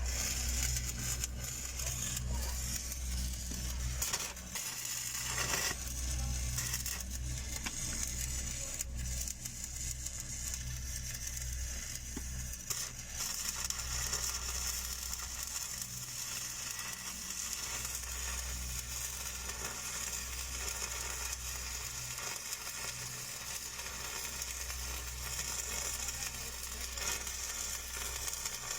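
Stick (shielded metal arc) welding arc crackling and sizzling steadily as an electrode is run in a downhill pass on steel pipe, over a low steady hum.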